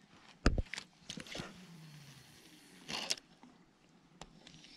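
Scattered clicks and knocks from handling a spinning rod and reel while a hooked perch is reeled in. The loudest is a sharp knock about half a second in, and a brief rustle comes about three seconds in.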